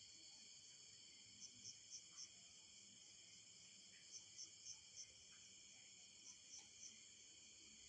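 Faint night insect chorus of crickets: a steady, high, shrill drone. Over it, a quick four-note high chirp repeats three times, about every two and a half seconds.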